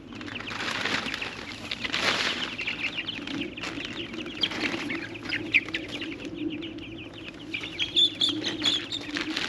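A flock of young meat chickens peeping constantly in a pasture pen, with bursts of wing flapping and rustling about one and two seconds in.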